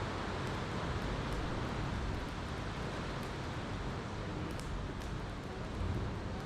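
Ocean surf washing in a steady rush, with a campfire crackling over it in scattered faint sharp pops.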